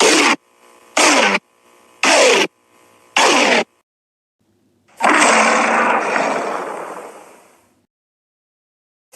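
Giant-ape monster vocal sound effects for King Kong: four short calls about a second apart, each dropping in pitch, then a longer harsh, noisy call of about three seconds that fades away.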